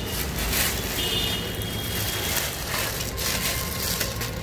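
Thin plastic bag crinkling and rustling while mustard greens are shaken out of it onto a steel plate.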